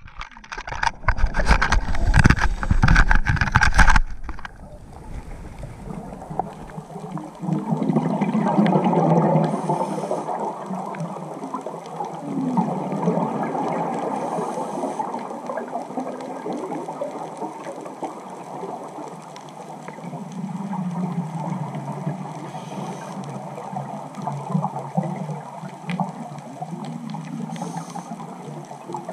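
Scuba regulator bubbles heard underwater through a camera housing: a steady underwater hiss with swells of bubbling rumble that come and go. For the first four seconds there is loud knocking and rubbing right at the microphone as the camera is handled.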